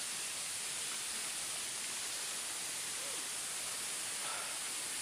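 Steady rush of flowing creek water, with faint distant voices about three and four seconds in.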